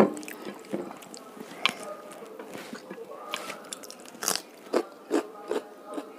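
Close-up eating sounds of rice and fish curry eaten by hand: wet chewing and lip-smacking clicks, with fingers mixing rice on a plate. The clicks come irregularly and bunch together in the second half.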